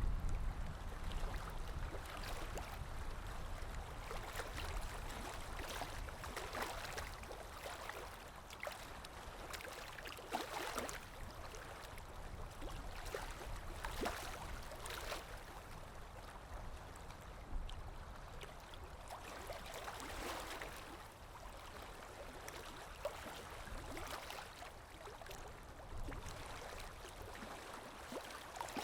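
Sea waves washing against the shore, a steady wash of water that swells and eases every few seconds, with faint crackling of water and foam.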